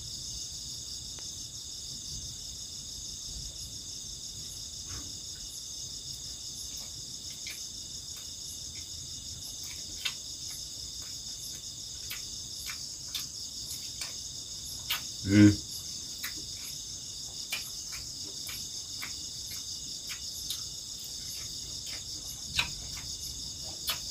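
Steady high-pitched chorus of night insects such as crickets, with faint scattered clicks of hand-eating from a plastic plate and one louder bump about fifteen seconds in.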